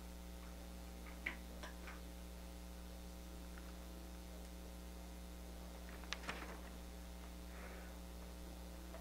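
Steady electrical mains hum, with a few light clicks and rustles from papers being handled in a binder on a desk: a pair about a second in and a louder cluster about six seconds in.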